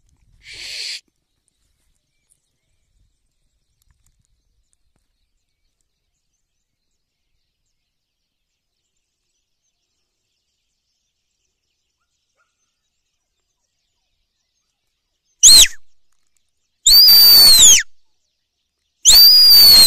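A long stretch of near silence, then three loud, high whistles close to the microphone near the end, each rising and then falling in pitch, the second and third longer than the first. These are herding-style whistle signals to a border collie.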